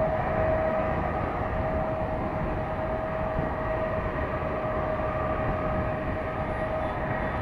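Lockheed C-5A Galaxy's four General Electric TF39 turbofans running at taxi power: a steady high whine over a low rumble.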